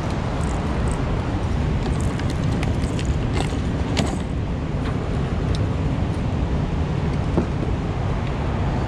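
Steady low rumble, with scattered clicks and knocks of fishing gear and a plastic tackle box being handled.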